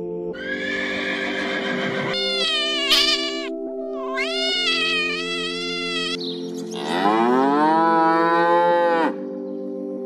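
Animal calls over steady background music: a horse neighing with a quavering whinny in the first few seconds, a kitten meowing around the middle, then a cow giving one long moo that rises in pitch near the end.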